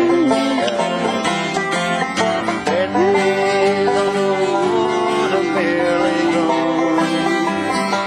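A man singing while strumming an acoustic guitar, holding one long sung note from about three seconds in.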